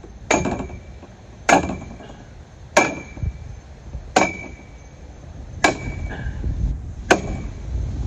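Sledgehammer striking the top of a 1-1/2-inch metal EMT conduit pole six times, about one blow every second and a half, each hit followed by a brief metallic ring. The blows drive the pole down into the soft muck of the canal bottom as a dock pylon.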